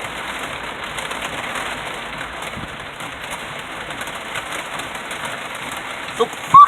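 Steady heavy rain falling. Near the end, a brief, loud, rising high-pitched call or vocal sound cuts through.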